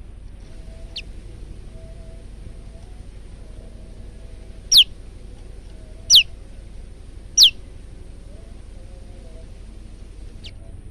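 Male prenjak lumut calling: three loud, sharp notes that each fall quickly in pitch, spaced about a second and a half apart near the middle, with a fainter note about a second in and another near the end, over a steady low hum.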